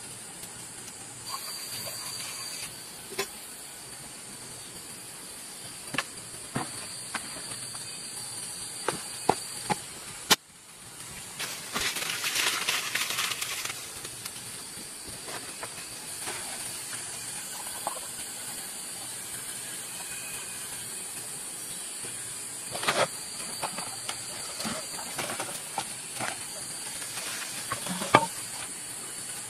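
Wood cooking fire with a green bamboo tube set over the embers: a steady high hiss with scattered crackles and clicks. A louder rushing hiss lasts about two seconds around the middle.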